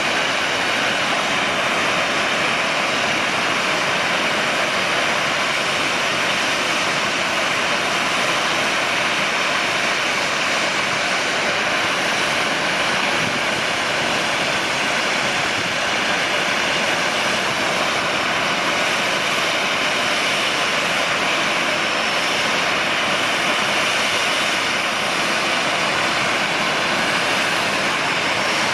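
Boeing 737-800's twin CFM56-7B jet engines running at low thrust as the airliner taxis, a steady rushing whine with no change in level.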